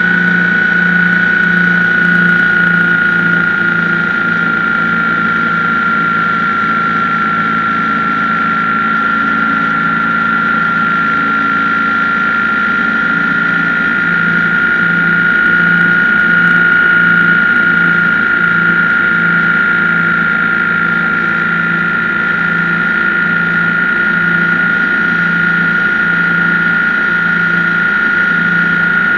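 BMW R1150GS boxer-twin engine running at a steady pace on the move. The engine's low, pulsing note sits under a loud, steady high-pitched whine that dips slightly early on and then holds.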